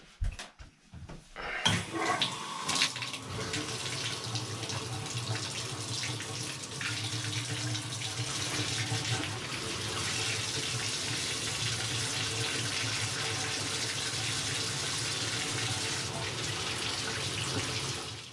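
After a few light knocks, water starts running from a bathtub spout about a second and a half in, a steady rush splashing into the tub and over a hand held under it, from a single-handle Delta tub/shower valve with a newly replaced cartridge. The flow shuts off near the end.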